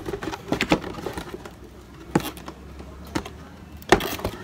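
Cardboard cake box being handled and opened by hand: a few short taps and clicks of the box and its flaps, the sharpest near the end.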